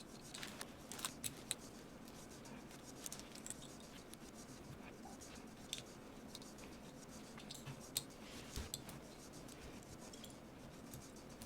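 Faint, scattered small clicks and scrapes of screws being tightened into a ratcheting gun-belt buckle, clamping it onto the belt.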